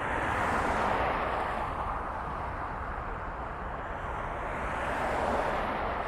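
Steady rushing vehicle noise that swells a little about a second in and again near the end.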